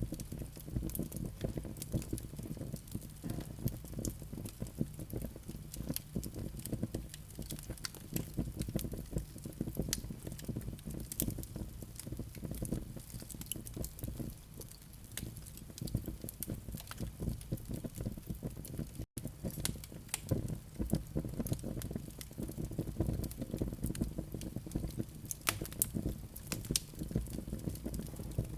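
Fireplace fire of flaming live coals crackling, with many irregular sharp crackles over a steady low rumble of the flames. The sound cuts out for an instant about 19 seconds in.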